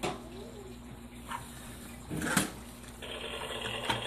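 Low steady background hum with a small knock at the start and a brief rustling noise about two seconds in, handling noise from the phone filming the tank; a faint steady hiss, like running water, comes in about three seconds in.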